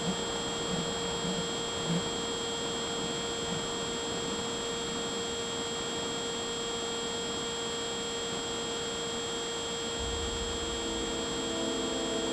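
RC plane's electric motor giving a steady whine over a constant rush of airflow noise at cruise, picked up by the onboard camera; a low rumble and more tones join in near the end.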